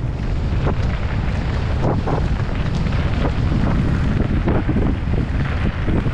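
Mountain bike being ridden along a rough dirt trail: tyres rolling and the bike knocking over bumps, under a heavy rumble of wind buffeting the microphone.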